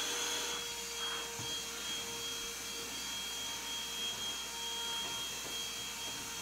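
A steady mechanical whooshing hum, like a motor or fan running, with two faint constant whining tones, one low and one high; it does not change.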